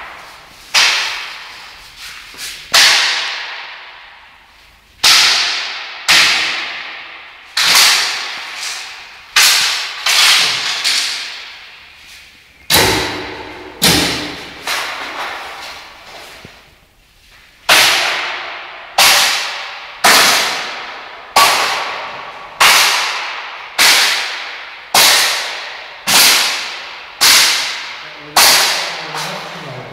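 A thin stick repeatedly whacked down on a snake and the tiled floor: about twenty sharp cracks, each ringing out in the bare room, with a short pause midway and then a steady blow about once a second. The snake is being beaten to death.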